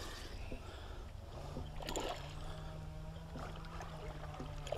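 Water splashing as a hooked mullet thrashes at the surface, over a steady low wind rumble on the microphone. A steady low hum sets in about a second and a half in.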